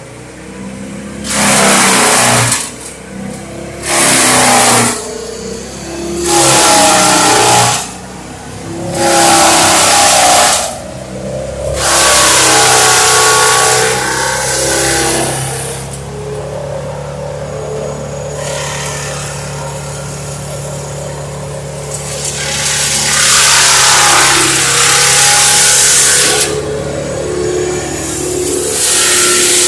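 Trailer-mounted wood chipper (brush shredder) running with its engine humming steadily while branches are fed in. Loud bursts of chipping, each a second or two long, come every few seconds and the engine strains under each load. A longer spell of chipping comes near the end.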